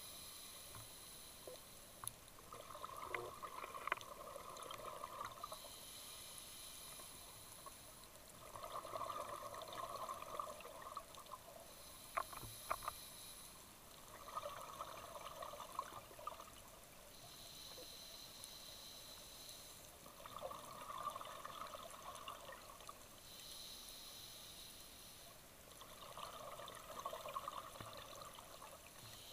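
Scuba diver breathing through a regulator underwater: a steady hiss on each inhale alternates with a burst of bubbling exhaust on each exhale, about every six seconds. There are a few sharp clicks.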